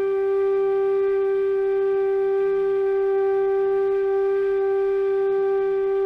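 A G bass bamboo flute (bansuri), 25 inches long, holding its Sa note (G) as one long, steady, unwavering tone. It is played for a tuning check against a chromatic tuner.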